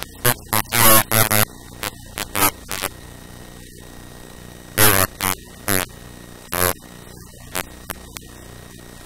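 Steady electrical mains hum with static hiss, broken several times by short loud bursts of a distorted, unintelligible voice.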